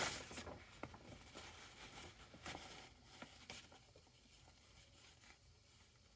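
Faint rustling and a few light clicks of paper shooting targets being handled, dying away to near silence after about four seconds.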